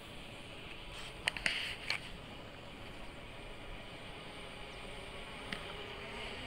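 Faint steady outdoor background noise, with a quick cluster of three or four sharp clicks a little over a second in.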